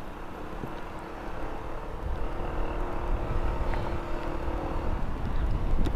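Motorcycle riding in traffic: engine and road rumble with wind on the microphone, getting louder about two seconds in.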